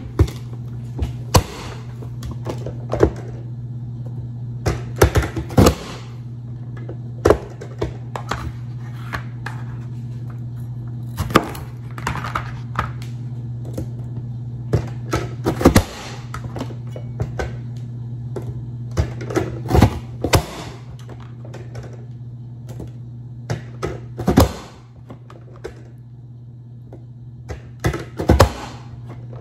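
Manual vegetable chopper chopping jalapeños, making irregular sharp clacks singly and in quick clusters, over a steady low hum.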